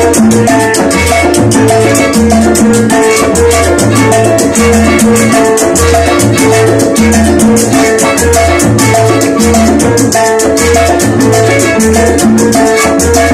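Live charanga band playing salsa: flute, violin and conga over a repeating syncopated bass line, loud and without a break.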